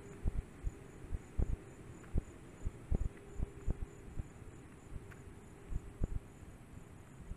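Insects chirping in an even, high-pitched pulse about three times a second, with irregular low thumps over it.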